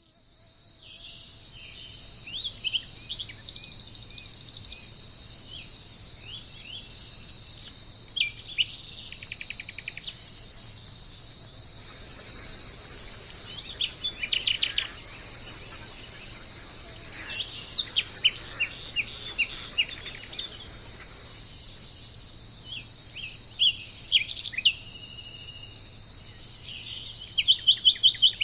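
A steady, high insect drone runs throughout, with wild birds calling over it in groups of short, sharp, falling chirps every few seconds. A quick run of louder chirps comes near the end. The sound fades in over the first couple of seconds.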